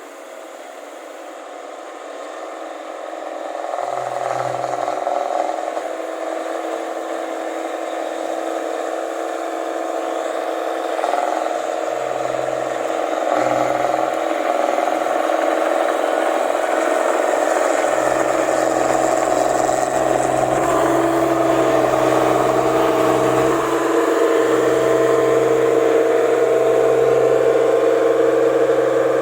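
Rice combine harvester's diesel engine running under load with a loud exhaust, growing steadily louder, with a deeper low note joining in past the middle.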